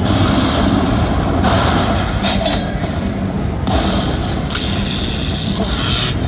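Loud, steady casino-floor din from slot machines, with a brief high beep a little over two seconds in.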